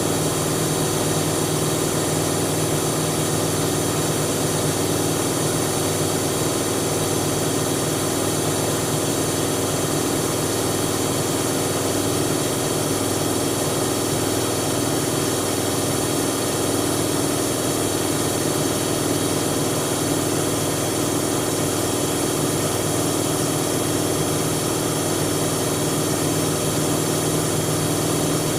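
Siemens Siwamat 7163 iQ front-loading washing machine running steadily, a constant motor hum with a higher whine held at one pitch.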